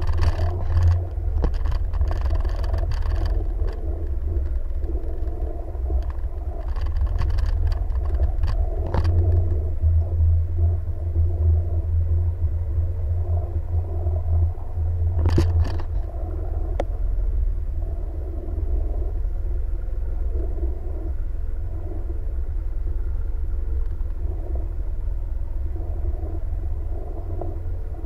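Jet ski engine running steadily under a heavy low rumble, with a few sharp knocks, the loudest about fifteen seconds in.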